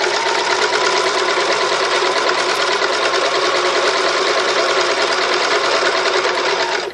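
Electric sewing machine running steadily, stitching a straight row through two layers of fabric. The motor's whine climbs as it gets up to speed at the start, then holds steady over a fast rapid needle rhythm until the machine stops abruptly at the end.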